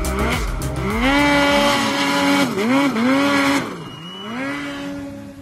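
Snowmobile engine revving up and down over and over as the throttle is worked in deep powder snow, its pitch repeatedly rising, holding and falling. It turns quieter after about three and a half seconds as the sled moves away.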